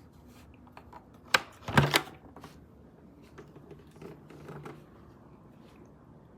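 A sharp click, then about half a second later a brief clatter of several quick knocks, followed by faint scattered ticks of handling.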